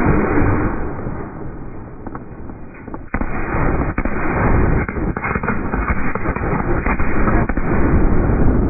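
Fireworks finale: a dense, continuous barrage of shells bursting, heard as rumbling booms mixed with many sharp pops. It eases off between about one and three seconds in, then comes back suddenly loud just after three seconds.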